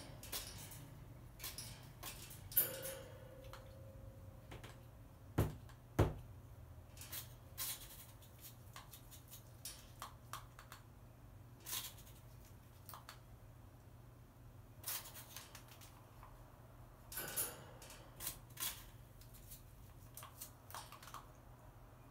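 Scattered light clicks and taps as a crow pecks at a whole apple and steps about on a wire cage top, with two sharper knocks about five and six seconds in.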